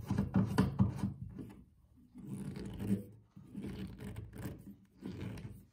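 Rubbing and scraping of the doorstop's metal hardware being handled and tightened by hand: a quick run of strokes in the first second and a half, then softer, separate scrapes.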